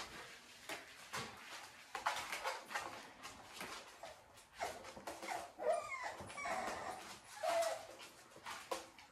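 Seven-week-old American bully puppies whimpering in several short high cries, some sliding up or down in pitch, among small clicks and rustles.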